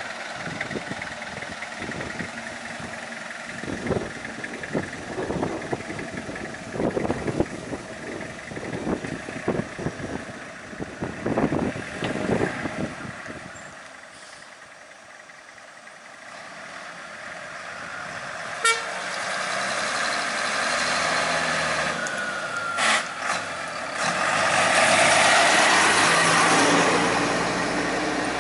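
Vehicle engines running on the road, uneven and pulsing at first, then building as a large vehicle's engine runs close by and gets loudest near the end, with a short horn toot a little past two-thirds of the way through.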